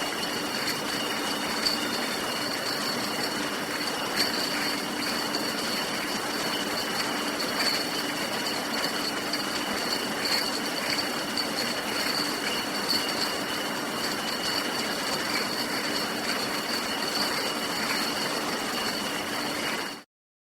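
Beer bottling line running: a steady mechanical din with a constant whine and glass bottles clinking against each other every second or two. It cuts off suddenly near the end.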